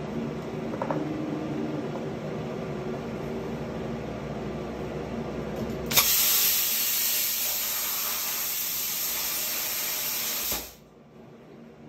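Everlast 50 A plasma cutter, run at 38 A and 70 psi, cutting 1.6 mm hot-rolled steel: a loud, even hiss starts suddenly about six seconds in and stops sharply nearly five seconds later. Before the cut there is a steady machine hum, with a brief low tone about a second in.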